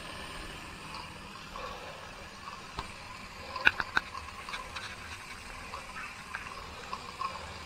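Wilesco D430 live-steam engine running quietly, a steady hiss of escaping steam with faint scattered ticks. About three and a half seconds in, a few sharp clicks and knocks come from the camera being handled.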